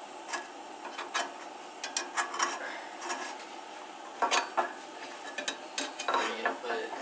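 Two spatulas scraping and clicking against a frying pan in irregular bursts as they work under a large pancake stuck to the pan, with a faint sizzle of the pan on the flame underneath.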